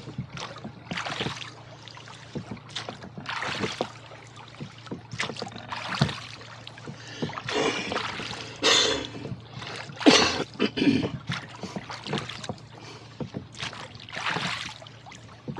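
Rowboat oars splashing and pulling through the lake water, one stroke about every two to two and a half seconds, over a steady low hum.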